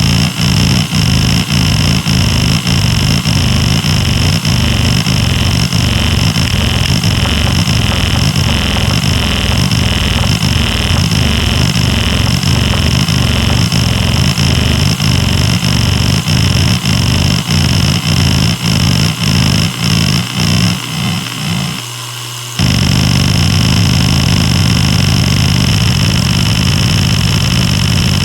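Maxtor DiamondMax 10 6V300F0 hard drive running with a steady high spindle whine while its heads seek, giving a rapid low chatter that pulses about twice a second. Near the end the seeking stops for a moment, then resumes as continuous dense chatter.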